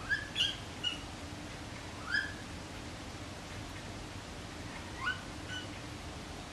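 A pet animal calling with short, high chirps: a quick cluster at the start, one about two seconds in, and a couple more about five seconds in.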